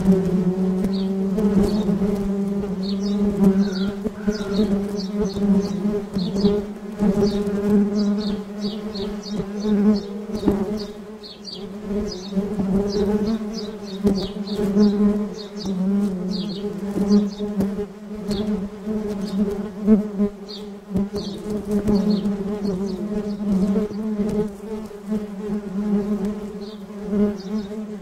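Small quadcopter drone's propellers buzzing steadily in a low hum with higher overtones, the loudness rising and falling slightly as it flies.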